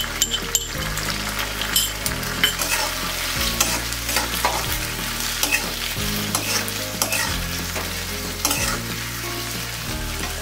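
Sliced onions and capsicum sizzling in hot oil in a metal kadhai, freshly coated with ketchup and red chilli sauce. A flat metal spatula stirs and scrapes them, giving short sharp clicks against the pan throughout.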